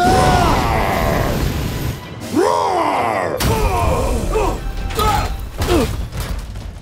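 Cartoon battle sound effects: a robot dinosaur's fire breath blasts out suddenly, then a long rushing explosion with several pitched sweeps that rise and fall, over dramatic music.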